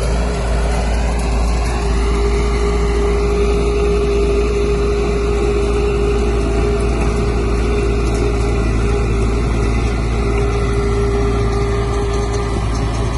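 Heavy diesel engine of an earthmoving machine running steadily, with a constant whine over the engine drone and a short rise in pitch about two seconds in.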